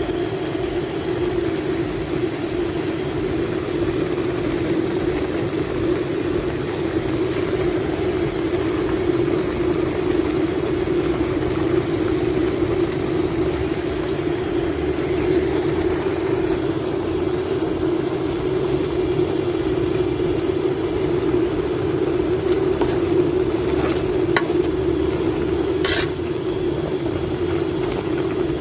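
A covered pot of herbal mixture heating on the fire: a steady hum with a sizzling hiss, and a few sharp clicks near the end.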